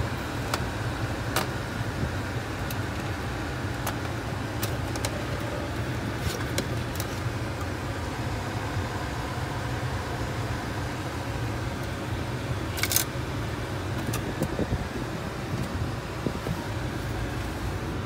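Steady cabin noise inside a 2009 Nissan Tiida: the air conditioning blowing cold air from the dashboard vents over the car's low running rumble. A few light clicks come through, the loudest about thirteen seconds in.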